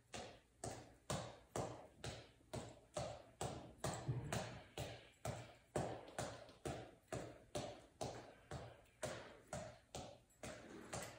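Gloved fists punching a reflex ball on a cord from a headband: a fast, even run of soft taps, about two and a half to three a second.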